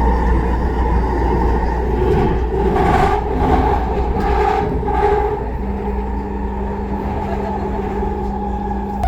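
SkyTrain car running along the elevated guideway, heard from inside the train: steady rumble with a steady whine, and a lower hum that comes in about halfway through.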